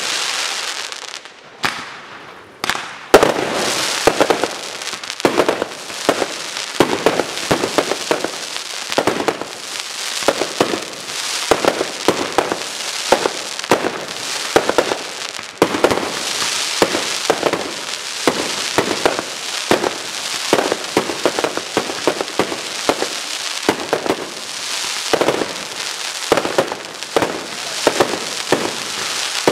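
Aerial fireworks display: a dense, unbroken run of bursting shells and crackling reports, with a loud bang about three seconds in.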